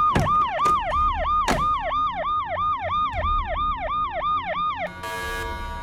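Electronic alarm siren going off in rapid falling sweeps, about three a second, then cutting off near the end: the smart fridge's emergency alarm. Two brief knocks sound in the first two seconds.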